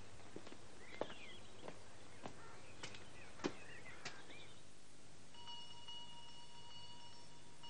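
Boot footsteps on stone steps, a sharp step a little more than once a second, with birds chirping. After about five seconds the steps stop and a faint steady high tone holds.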